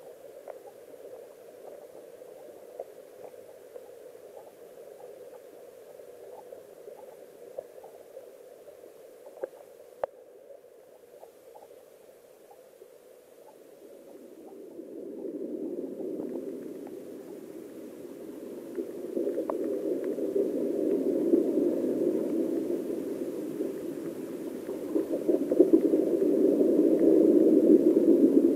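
Underwater sound of a flowing stream heard through a submerged camera: a muffled, low rush of water with scattered small clicks. It grows louder about halfway through and louder again near the end.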